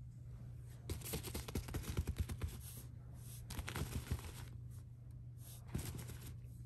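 Fabric cat tunnel rustling and scratching in irregular scratchy flurries, busiest from about a second in and again near the middle, with a single scrape near the end.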